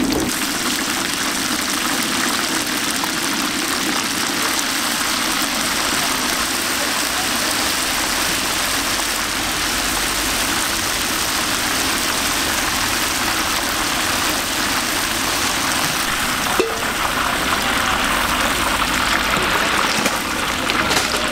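Battered strips deep-frying in a large wok of hot oil: a steady, dense sizzle, with a single sharp click about two-thirds of the way through.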